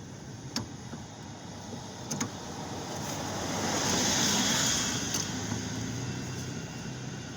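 A passing car: road and engine noise swells to a peak about four seconds in, then fades away. A few faint clicks from wrench work on the tie rod nut are heard alongside.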